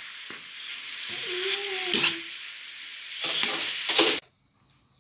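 Ground beef with grated carrot and onion sizzling in a frying pan while a metal spoon stirs and scrapes through it. A short wavering tone sounds about a second and a half in, and the sound cuts off abruptly about four seconds in.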